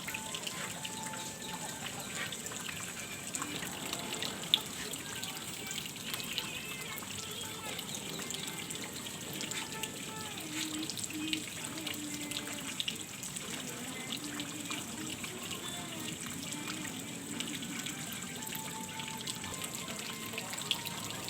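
Steady trickling water, with a few faint distant voices and a single sharp click about four and a half seconds in.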